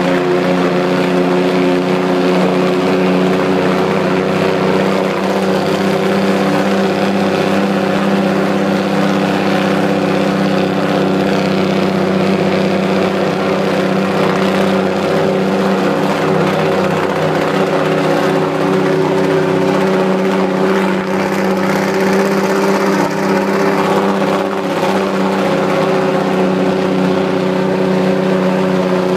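Vehicle engine running at a steady drone, with tyre and wind noise, while driving downhill on a mountain road.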